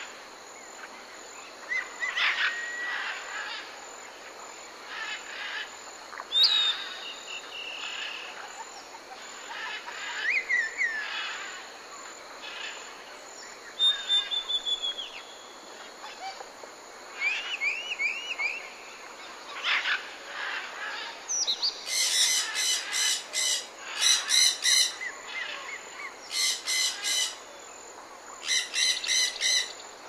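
Mixed chorus of tropical forest birds calling: assorted chirps, whistled glides and trills over a steady high background hiss. In the last third, a louder bird gives four bouts of rapidly repeated calls.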